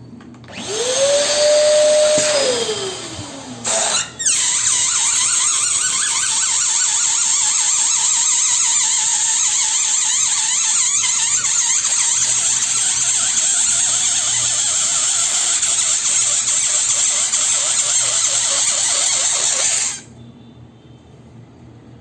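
Electric balloon pump blowing air into a balloon: a short run of about three seconds whose pitch rises and then falls, then a long steady run that cuts off suddenly near the end.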